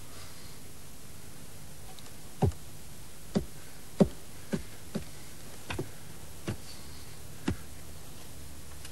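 About eight soft taps or knocks on a table, coming irregularly from about two seconds in, like someone counting. A steady tape hiss runs underneath.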